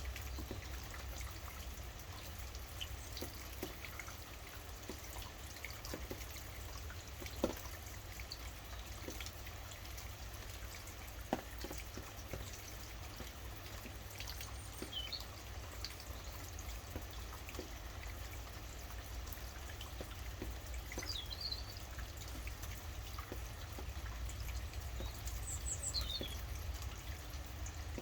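Steady rainfall with many small drips ticking, and a couple of sharper drops. Now and then a bird gives a few short high chirps.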